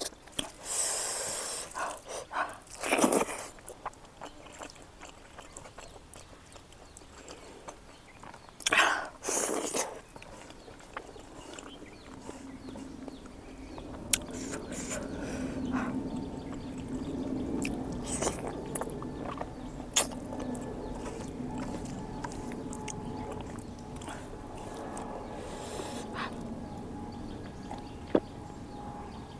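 Close-miked eating sounds of someone eating rice and smoked pork fat by hand: chewing, lip smacks and several loud, sharp sucking slurps, the loudest around three and nine seconds in. From about twelve seconds in, a steady low hum runs underneath.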